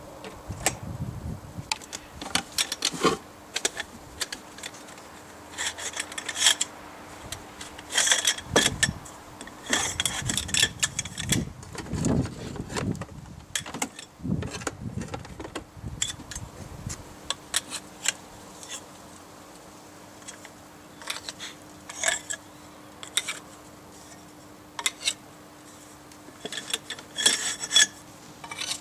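Metal sections of the Torn.Fu.b1's original rod antenna being handled and fitted together: irregular clinks, knocks and rattles, busiest in the middle and again near the end, over a faint steady hum.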